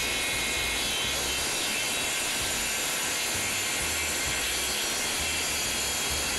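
Table saw running and ripping a wooden board as it is fed along the blade: a steady, loud mix of motor whine and cutting noise.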